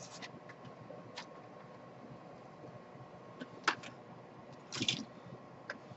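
Sparse small clicks and taps of laptop parts being handled, the loudest about three and a half seconds in and a short cluster near five seconds, over a faint steady hum.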